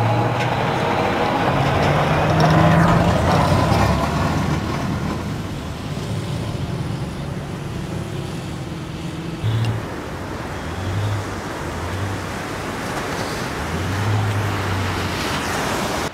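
Diesel engine of a tracked amphibious assault vehicle (AAV7) running under load, with a low drone that swells and fades, mixed with a rushing wash of water and surf.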